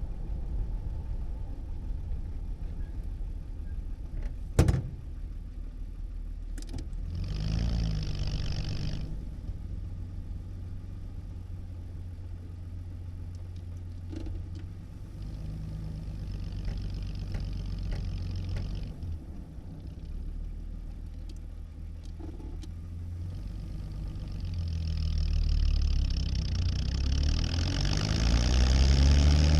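Cabin sound of a 1937 Plymouth's flathead straight-six, running at idle with one sharp knock about four and a half seconds in, a brief rev a few seconds later, then pulling away near the end, its pitch rising as it accelerates.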